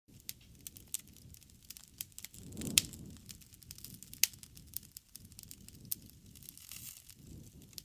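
Wood campfire crackling, with sharp pops scattered irregularly throughout; the loudest pop comes a little under three seconds in, over a low rumble of flame that swells around it, and another strong pop follows just past four seconds.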